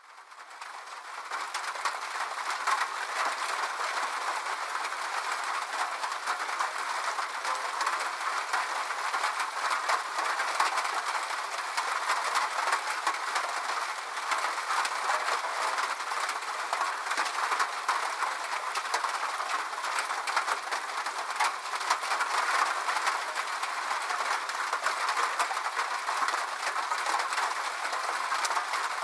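Steady rain on a metal roof: a dense hiss of countless small drop ticks, fading in over the first couple of seconds and then holding steady.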